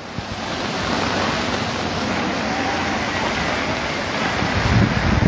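Muddy floodwater from heavy rain rushing across a street, a steady rushing noise that grows louder just after the start, with low rumbling gusts near the end.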